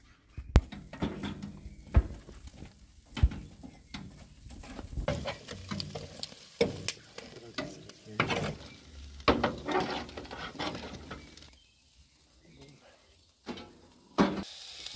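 Food sizzling on a barbecue grill, with irregular clicks, clatters and scrapes of metal utensils. There is a quieter lull about three-quarters of the way through.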